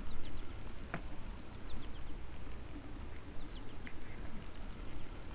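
Outdoor ambience: a few short, high, falling bird chirps over a steady low rumble, with one sharp click about a second in.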